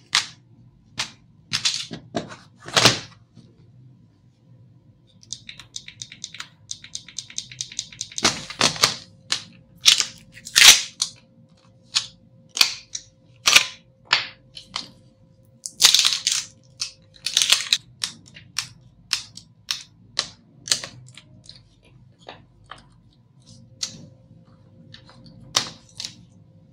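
Clicks, taps and knocks of plastic and metal parts of a Lenovo ThinkPad T440 being handled and taken apart. There is a quick run of small ticks about five seconds in, and sharper knocks come scattered throughout.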